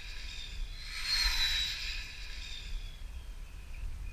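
The RC supercar's dual TP4070 brushless electric motors give a high-pitched whine as the car speeds past. It is loudest about a second in, then falls in pitch as the car goes away, over a low rumble.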